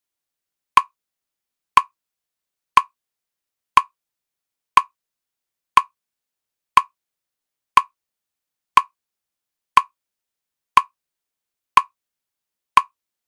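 A single short tick repeated at an exactly even pace of one per second, like a metronome, with silence between the ticks.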